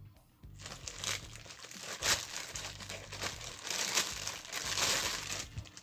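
Parcel packaging crinkling and tearing as it is handled and opened, starting about half a second in and stopping just before the end.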